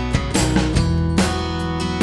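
Background music: a light tune of strummed and plucked acoustic guitar, with fresh note attacks every half second or so.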